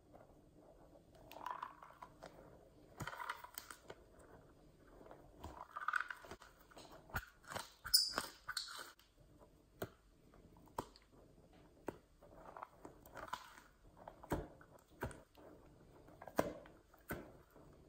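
Hands squeezing and rubbing a spiky rubber stress toy, making irregular squishy, crackly handling noises with scattered clicks. The loudest squeeze comes about eight seconds in.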